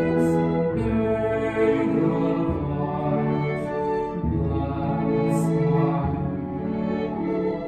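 Slow, gentle music of long held notes, with singing voices.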